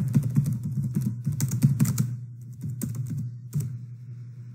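Computer keyboard typing: quick, dense keystrokes for about two seconds, then fewer, more scattered keystrokes, over a steady low hum.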